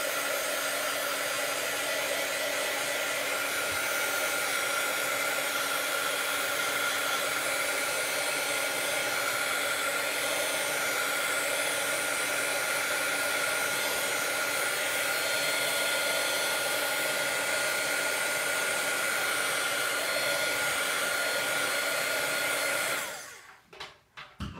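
Heat gun running steadily, blowing hot air to dry wet watercolor paint on paper: an even rushing hiss with a steady fan whine. It switches off near the end and winds down over about a second.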